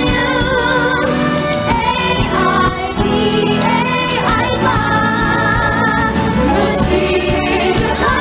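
Children singing a song into microphones over instrumental backing music, held notes wavering with vibrato.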